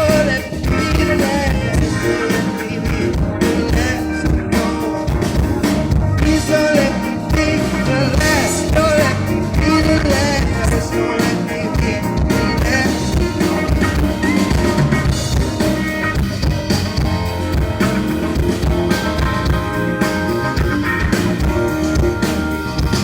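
Live amplified band playing a passage without lyrics: drum kit keeping a steady beat under electric guitar and other instruments.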